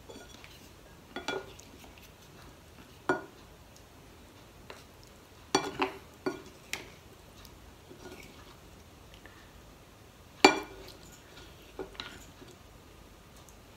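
A white ceramic soup spoon clinking and knocking against a ceramic serving bowl and plates as food is scooped out, in scattered clinks with a short ring. The loudest clink comes about ten and a half seconds in.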